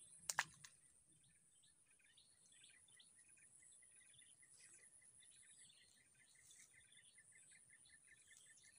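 Faint natural ambience: a steady high-pitched insect whine, and from about a second and a half in a quick run of faint chirps, about five a second. A sharp double click just after the start is the loudest sound.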